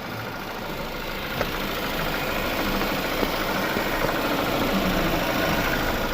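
A Chevy Malibu's engine running steadily at idle, growing slightly louder, with two light clicks in the first half.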